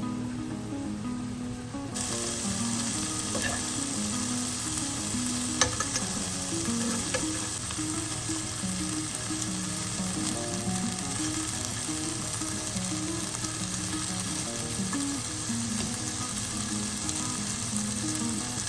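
Thin marinated chicken slices sizzling in a frying pan. The sizzle rises sharply about two seconds in, after the heat has been turned up, then holds steady. A few light clicks come in the first seconds, the sharpest about five and a half seconds in.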